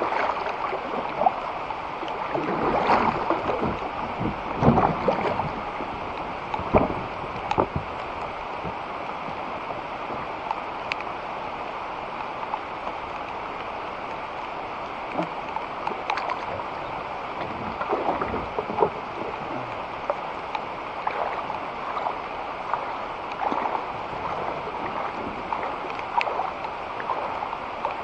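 Kayak paddling on a creek: irregular paddle splashes over a steady wash of moving water.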